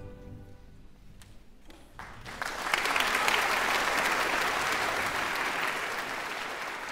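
A short hush, then audience applause breaking out about two seconds in, swelling quickly and holding steady.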